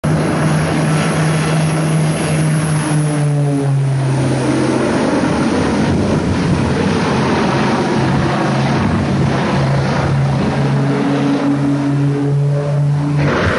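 Propeller aircraft engine running with a low steady drone over a constant rushing noise; the drone fades out about four seconds in and returns after about ten seconds.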